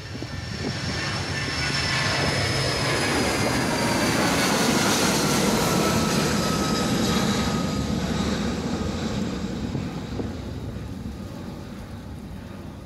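BAe 146-200 airliner's four turbofan engines at takeoff power as it lifts off and climbs past. The rumble swells, peaks about halfway through and fades, while high whining tones slide down in pitch as it goes by.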